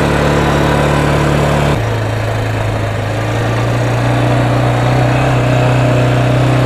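Small motorbike engine running steadily; its pitch drops suddenly about two seconds in, then slowly climbs again.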